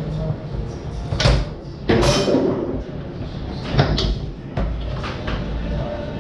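Tornado foosball table in play: a series of sharp knocks and clacks from the ball being struck by the plastic men and rods hitting the table, with one of the loudest hits about four seconds in.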